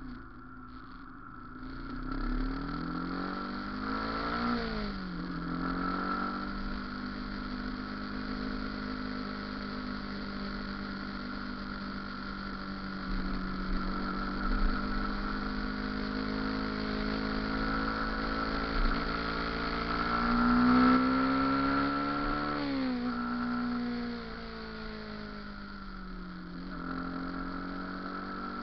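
Motorcycle engine running under way. Its pitch climbs twice, a couple of seconds in and again about two-thirds of the way through, each time dropping sharply at the top, with a steady even pitch in between.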